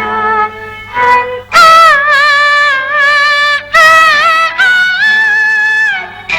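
Modern Peking opera music: a softer gliding melodic passage, then from about a second and a half in two long, loud, high held notes that waver in pitch.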